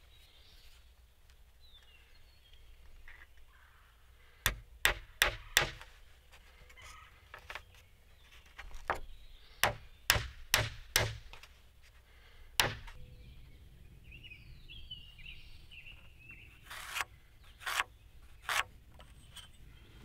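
Hammer driving small nails into the corner of a frame of thin wooden strips: four quick strikes, then a run of five, then a single blow, with three lighter taps near the end. Birds chirp faintly in the background.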